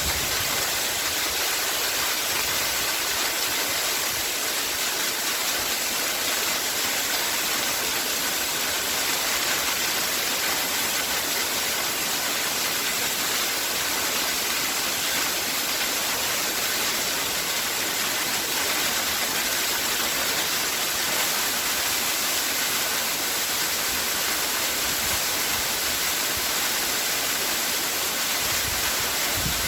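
Waterfall: water falling and splashing in a steady, even hiss that does not change.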